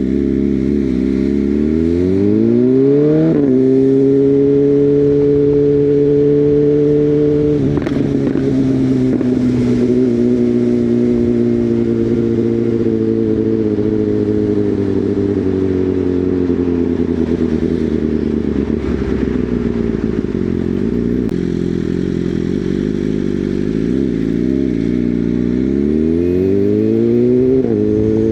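BMW M1000R's inline-four engine running on the move through an Akrapovič decat full exhaust with a copy SC Project S1 end can and Leiker baffle. The revs climb for about three seconds and drop sharply at an upshift, then hold. They fall away slowly over several seconds, then climb again near the end to another sharp drop at the next upshift.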